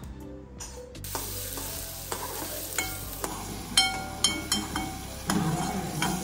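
Food frying in a hot pan: a sizzle starts suddenly about a second in, and a metal spoon stirs and clinks against the pan several times in the second half.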